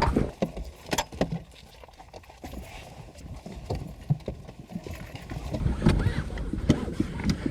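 Seatbelt latch plates clicking into buckles and belts being pulled across, a string of irregular clicks and knocks over the rustle and thumps of people shifting in car seats.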